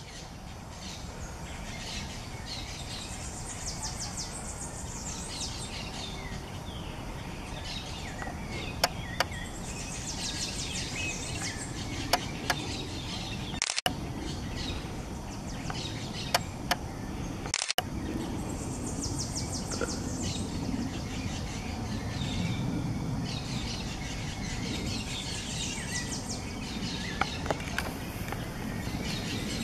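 Outdoor ambience: a steady background hum with high, rapid trills that come and go every few seconds, and a few sharp clicks here and there.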